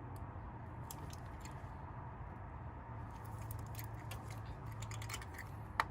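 Faint scattered tool clicks and ticks as a spark plug is turned in by hand with a socket, getting more frequent about halfway through, with a sharper click near the end, over a steady low hum.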